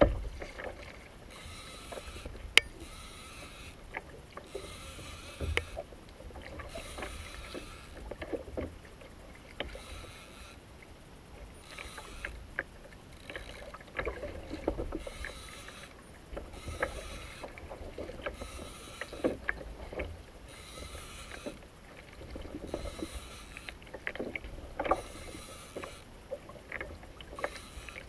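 Water slapping and sloshing against a kayak hull, swelling and fading every second or two, with low wind rumble on the microphone and scattered small clicks and knocks.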